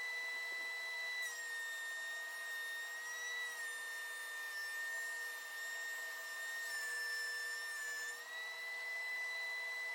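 DeWalt benchtop thickness planer running steadily with a high motor whine while it planes a cedar board. The pitch dips slightly a few times, then comes back up.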